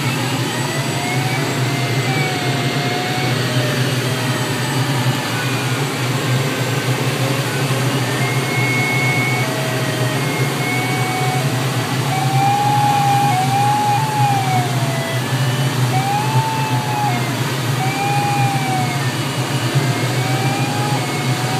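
Steady rushing airflow noise in a Grob sailplane's cockpit in flight, with the air brakes out on the approach. Over it, a wavering electronic tone in short notes that glide up and down, from the glider's audio variometer.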